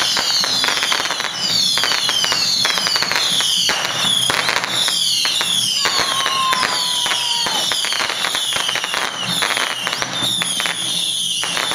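Strings of firecrackers going off nonstop in a dense, continuous crackle, with high falling whistles repeating above the bangs.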